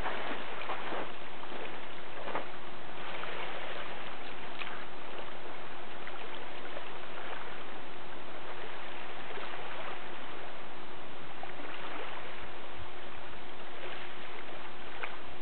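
Small waves lapping and washing onto a gravel lakeshore, a steady wash of water with soft little splashes, over a faint steady hum.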